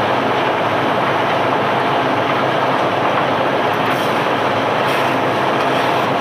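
Steady, loud machinery noise from unloading cobblestones off a barge, with a few faint clicks or knocks in the second half.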